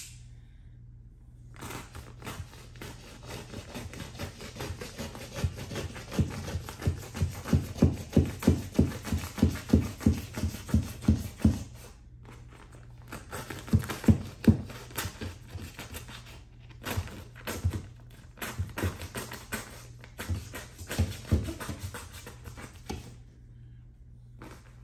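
A flat metal tool scraping and knocking against a 7-inch hole saw as it pries the cut sheetrock plug out, in runs of quick, regular strokes with short pauses between.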